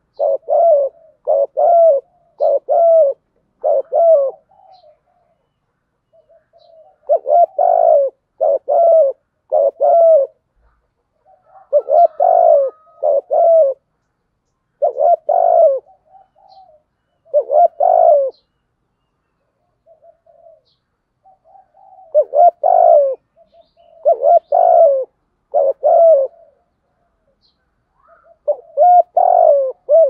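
Spotted dove cooing: phrases of three or four short, low coos, repeated every few seconds with brief pauses between them.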